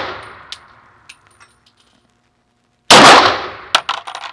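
A Star Super B pistol in 9mm Largo fires one shot about three seconds in, with a fading, ringing tail. Bright metallic clinks of spent brass casings landing follow the shot and also come through the fading end of the previous shot.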